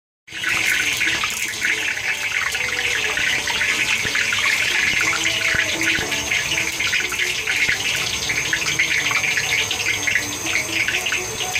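Kettle-corn cooker hissing steadily with a dense, fine crackle as the kettle heats up, still empty of corn, before popping begins.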